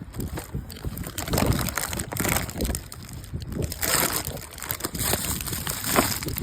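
Wind buffeting the microphone in irregular gusts, a low rumble with louder surges.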